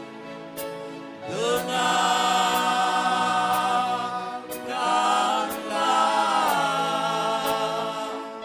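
Male vocal group singing a slow gospel song into handheld microphones, the voices coming in strongly about a second in and holding long notes in harmony. A light tick keeps a steady beat about once a second underneath.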